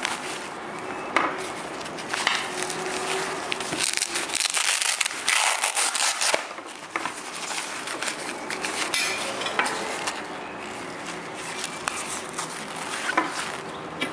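Hands handling a nylon blood pressure cuff: the fabric rustles and crackles, with a few sharp clicks, and is loudest for a couple of seconds midway.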